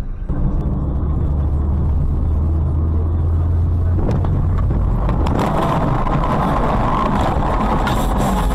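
Road and engine noise inside a moving car, as a dashcam records it, at first a steady low drone. About five seconds in it turns louder and harsher, with a few sharp clicks.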